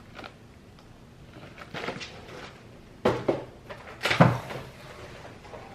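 Grocery items being handled and put away in a kitchen: a few knocks and clatters of packages and a cupboard or shelf, the sharpest about three and four seconds in.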